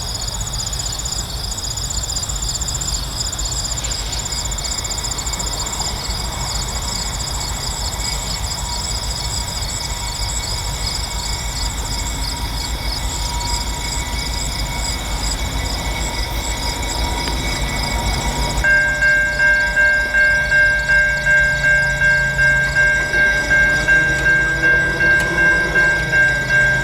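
Low rumble of an approaching freight train, with insects chirping steadily in the background. About two-thirds of the way in, a railroad grade crossing warning bell starts suddenly and rings steadily at about two strokes a second.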